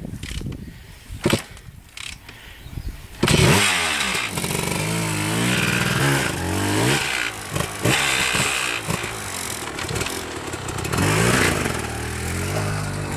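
A scattering of clicks and knocks, then about three seconds in an enduro dirt bike's engine comes in loudly. It is revved hard again and again, pitch rising and falling, as the bike is worked up a steep, loose track with its rear wheel spinning in the dirt.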